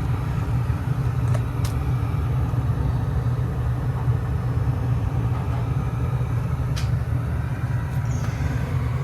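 Trane gas furnace running with a steady low drone from its blower, with a few faint light ticks.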